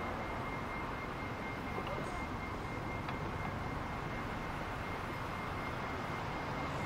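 Steady city street background noise: a low rumble of traffic, with a faint, thin, high steady tone running through it.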